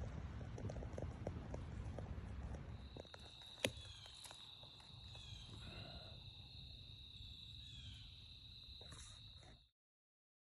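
Footsteps and rustling in dry leaf litter, with a sharp click about a third of the way in. Then a steady high insect trill with a few faint chirps over it, until everything cuts off abruptly near the end.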